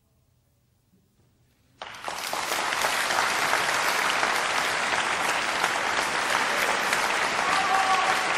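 Near silence, then about two seconds in applause from an audience starts abruptly and continues steadily.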